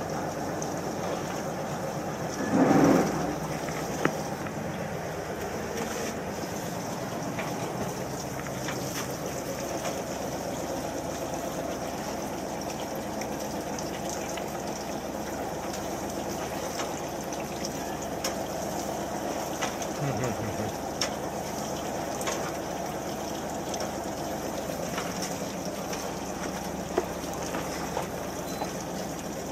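Fishing boat's engine running steadily at idle, with water sloshing along the hull. A brief louder noise about three seconds in.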